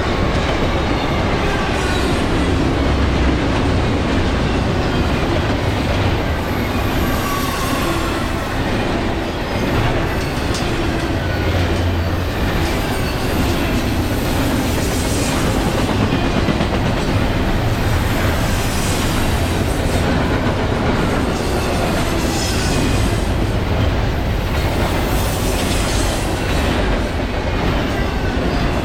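Intermodal freight train rolling past on a steep climb: a steady heavy rumble with clicking of wheels over rail joints. Thin wheel squeal rises and falls for the first several seconds.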